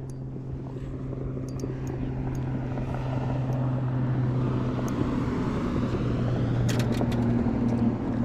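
Boat motor running with a steady low hum, while wind and water noise slowly build louder.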